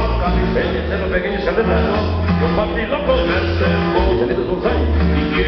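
Dance music played loud over a sonidero sound system, with strong repeating bass pulses under a busy instrumental mix.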